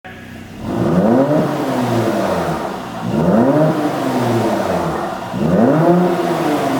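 Mercedes-AMG C43's twin-turbo V6 revved three times, its pitch rising and falling each time, with popping and crackling from the exhaust as the revs drop, the sign of a pops-and-bangs engine tune.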